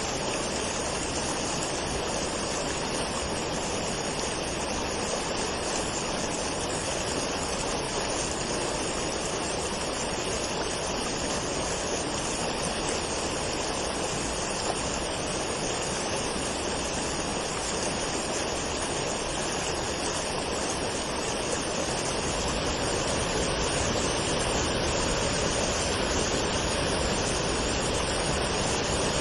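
Waterfall water rushing in a steady, even roar. It grows a little louder and deeper about three-quarters of the way through.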